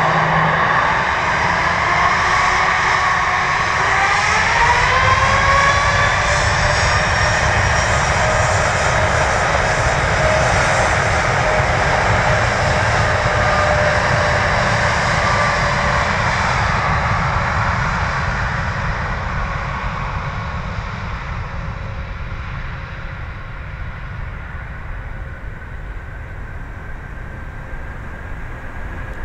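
A Boeing 787-8's GE GEnx-1B64 turbofans spooling up to takeoff thrust, with a whine that rises a few seconds in, then running loud and steady through the takeoff roll. The sound fades over the last ten seconds as the airliner moves away.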